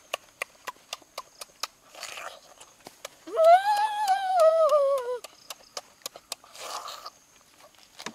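A person chewing food with the mouth full: many small wet clicks and smacks, with two short breathy puffs. About three seconds in comes a loud hummed "mmm" of relish that rises and then slides down in pitch, lasting about two seconds.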